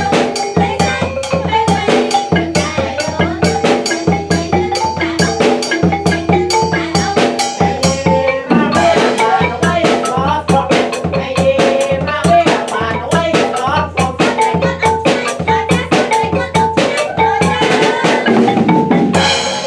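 Cambodian traditional ensemble music accompanying a shadow-puppet play, with a steady drumbeat and a struck xylophone-like melody.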